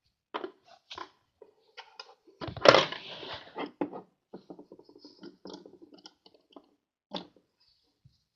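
Small plastic toy pieces being handled: a string of light clicks, knocks and rustles, with a louder scraping rustle about two and a half seconds in.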